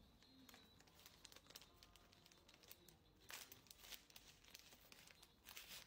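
Faint crinkling and rustling of something being handled, with a louder bout about three seconds in and another near the end.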